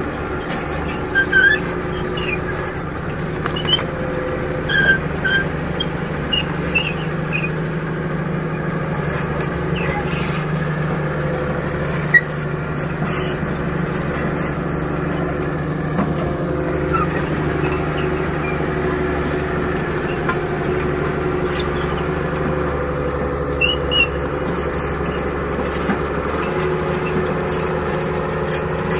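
Heavy diesel engine of an excavator loading dump trucks, running steadily with its pitch shifting slightly as it works, with short high squeaks scattered through it and a single sharp knock about halfway.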